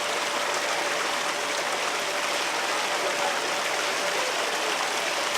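Steady rush of running water, like the water circulating or falling into a show's stocked fishing pond.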